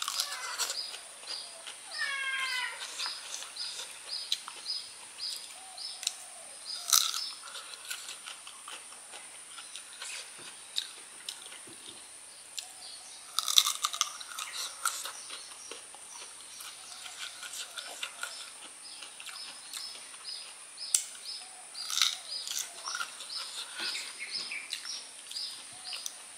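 Crisp bites and chewing of raw peeled kedondong (ambarella) fruit, crunchy bursts coming every few seconds, loudest about 7 s in, around 14 s and around 22 s. Behind it a steady high-pitched whine and a repeated high chirp, two or three a second, for much of the time.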